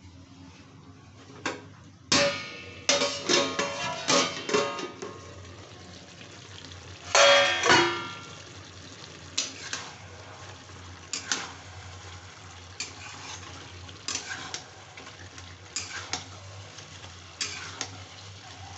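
A stainless steel plate-lid clanks and rings against an aluminium kadai as it is taken off and set down, a run of metallic hits with the loudest about halfway through. Then a metal spatula scrapes round the kadai stirring chicken and onions, a stroke every second or so.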